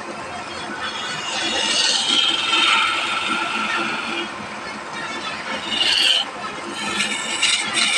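A woodworking tool working wood. It gives a drawn-out squeal from about a second and a half in until about four seconds, a short squeak a little later, then quick scraping strokes near the end.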